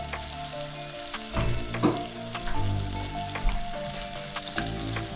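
Onions sautéing in hot butter in a frying pan, sizzling steadily, with scattered clicks of stirring. Background music plays underneath.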